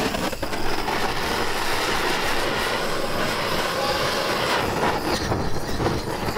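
Butane canister blowtorch lit near the start, then burning with a steady hissing roar as its flame heats a rubber subframe bushing to melt it out.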